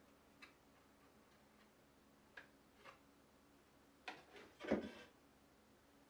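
Faint wooden clicks and taps, then a louder wooden clunk and rattle about four to five seconds in, as the wooden cam handle of a quick-release saw vise is swung open and the handsaw is freed from the jaws.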